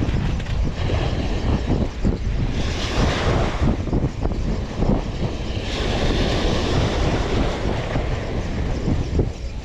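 Wind buffeting the microphone in uneven gusts, a heavy low rumble, with waves washing in the background.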